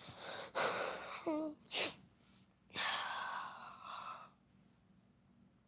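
A person's breathing and small voice sounds close to a phone microphone. There are short sharp breaths and a brief voiced sound with falling pitch in the first two seconds, then a longer breathy exhale like a sigh. Quiet follows from about four and a half seconds in.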